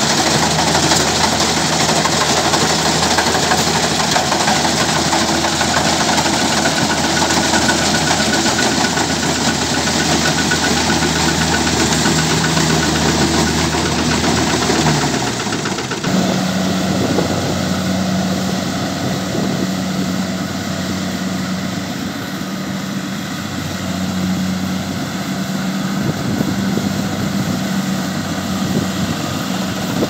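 Kubota DC70 rice combine harvester running close by: its diesel engine and threshing machinery give a loud, steady machine drone. About halfway through, the deep low rumble drops away and a steadier, higher hum takes over.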